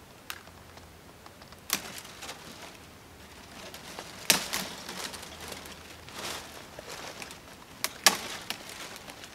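Dry dead pine twigs and branches snapping off a fallen tree: several sharp cracks, the loudest a little before the middle, with the brittle rustle and scrape of the dry branches being pulled and gathered between them.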